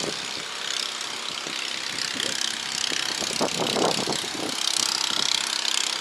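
An engine-driven machine rattling steadily, the noise of construction or repair works going on.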